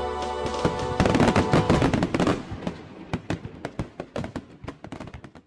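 Fireworks going off: a dense run of sharp bangs and crackles starting about a second in, thinning to scattered pops toward the end.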